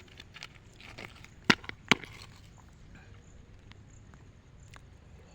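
A few faint clicks, then two sharp knocks about half a second apart, followed by faint background hiss.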